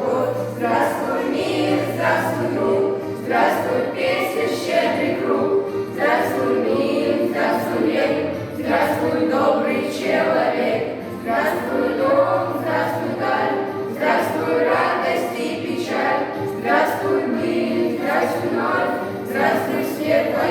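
A group of schoolchildren singing a Russian song together in chorus, the singing continuing without a break.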